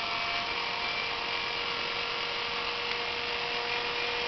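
Small electric motors and plastic gearing of a New Bright remote-controlled toy fire engine running with a steady whine, a clearer tone joining about half a second in.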